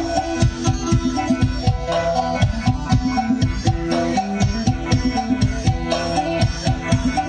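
Amplified Isan folk dance music: a steady drum beat under a repeating melody.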